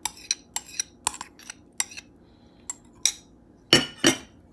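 A spoon scraping and clinking against bowls as a thick mayonnaise dressing is scooped out and scraped onto salad: a run of light clicks, then two louder knocks near the end.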